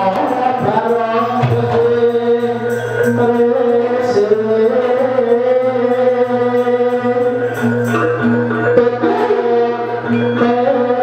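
Javanese gamelan playing continuous dance accompaniment, metallophones and drum, with a voice singing over it.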